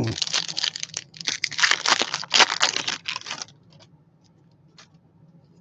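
A baseball card pack wrapper being torn open and crinkled: a dense run of tearing and crackling for about three and a half seconds, then only a few faint ticks.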